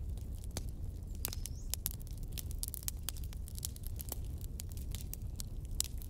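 Wood fire crackling: irregular sharp pops and snaps, several a second, over a low steady rumble.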